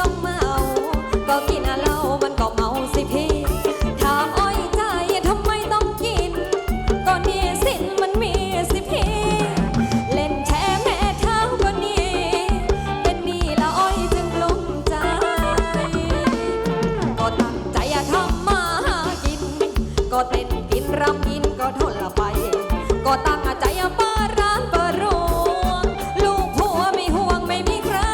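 Live Thai ramwong band music with a steady beat and a wavering melody line over it.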